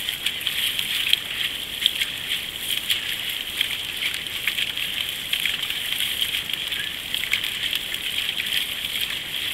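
Paddles dipping and splashing and water rushing along the hull of a nine-seat racing canoe under way, heard as a steady hiss with many short, irregular splashes.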